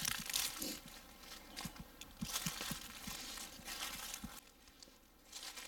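Footsteps crunching and rustling through dry fallen leaves on a forest floor, an uneven run of crunches underfoot.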